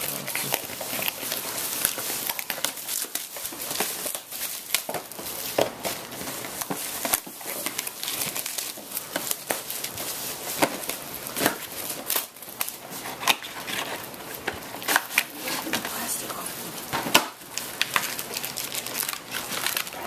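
Plastic shrink-wrap crinkling and tearing as it is peeled off a cardboard box of trading cards, then the wrapped card packs rustling as they are handled. The crackles run on unbroken.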